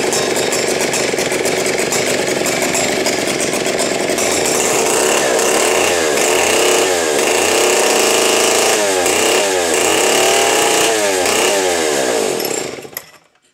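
Vintage Stihl 090 two-stroke chainsaw running loud, revved up and down over and over in the second half, then shut off near the end.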